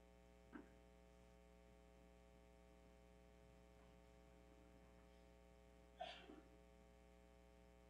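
Near silence with a steady electrical hum in the recording, broken by a faint short knock about half a second in and a brief faint clatter of two or three small sounds about six seconds in.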